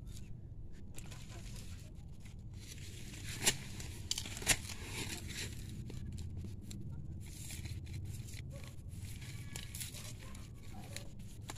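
Hands crumbling loose soil and tearing roots while digging out arrowroot rhizomes: a dry crackling and tearing, with two sharp snaps about a second apart a few seconds in.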